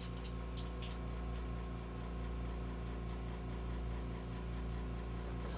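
Steady low mechanical hum from a running appliance, with a few light clicks in the first second as a plastic measuring spoon is handled.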